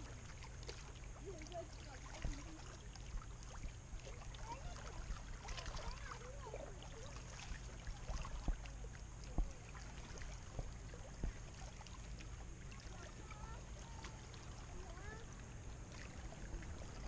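Faint small waves lapping against a rocky shore, over a steady low rumble of wind on the microphone, with scattered soft ticks and a few faint chirps.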